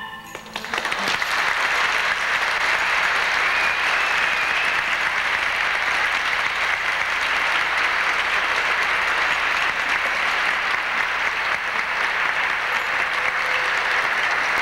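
The last marimba notes die away, then an audience breaks into applause that builds over the first second or two and holds steady and loud.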